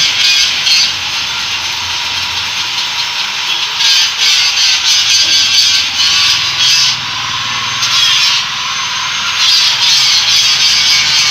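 A power grinder working steel, running continuously with a steady whine. The grinding noise grows louder three times, at the start, from about four to seven seconds in, and again near the end.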